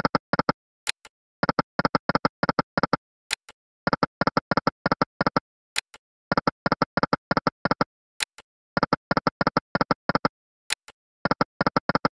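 Slot game sound effects from the EGT Lucky & Wild video slot: a quick run of about ten short pitched ticks as the reels spin and stop, repeating about every two and a half seconds over five spins, with a single sharp click between runs.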